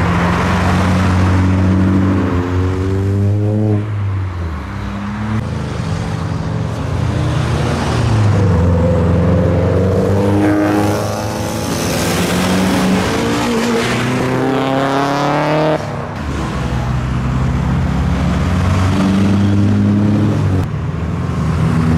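Modified Japanese performance cars, Mitsubishi Lancer Evolutions among them, accelerating hard away one after another. Each engine note rises in pitch, drops at a gear change and climbs again, several times over.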